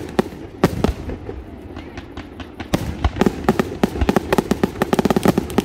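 Fireworks display going off: a few separate sharp bangs, then from about three seconds in a dense, rapid string of crackling reports.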